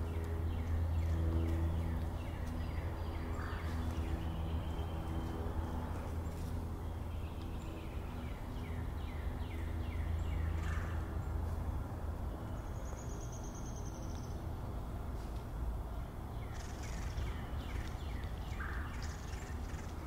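Pileated woodpecker chiseling at a tree cavity, in several short bouts of quick, evenly spaced knocks. A steady low hum runs underneath.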